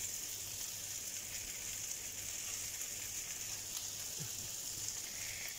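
Sliced green peppers frying in a little oil in an uncovered frying pan: a steady, even sizzle. The peppers are nearly browned, close to done.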